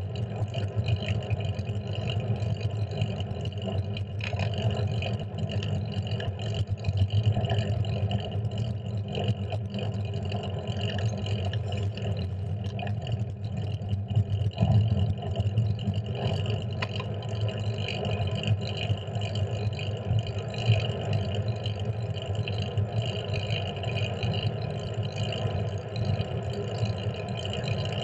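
Steady wind rush and road rumble picked up by a handlebar-mounted GoPro on a fixed-gear bicycle rolling along a paved street, with small swells in loudness.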